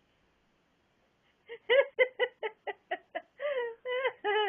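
A person laughing: after a silent first second, a run of quick high-pitched bursts, about four a second, turning into longer wavering laughs near the end.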